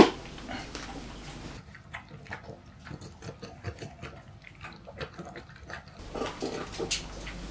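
French bulldog eating homemade dog food from a ceramic bowl: quick, irregular smacking and lapping with small clicks. A single sharp tap sounds right at the start.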